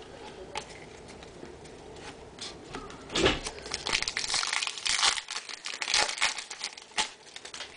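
Foil trading-card pack wrapper crinkling and tearing as it is handled and ripped open, a rapid run of crackles over about four seconds starting midway.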